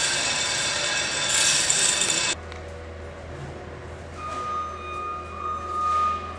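Steady construction-site machinery noise with several whining tones, cutting off abruptly about two seconds in. After that only a quieter low hum remains, with a faint steady tone near the end.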